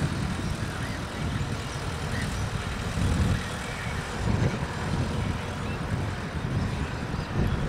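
Electric multiple unit suburban train (ICF rake) approaching along the line: a low, uneven rumble that swells and eases.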